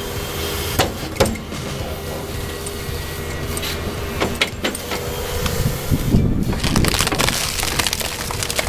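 Excavator engine running steadily under a stump-harvesting head, with sharp cracks of wood splitting and breaking a few times. The sound gets louder and rougher for a couple of seconds past the middle.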